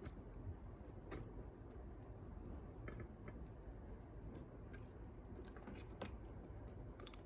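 Faint metallic clicks and scrapes of a thin pick wire lifting the levers of a lever padlock under light turning-tool tension, a few scattered ticks spread through the stretch.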